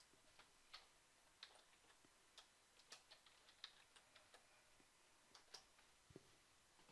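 Faint, irregular keystroke clicks on a computer keyboard as a word is typed into a search box.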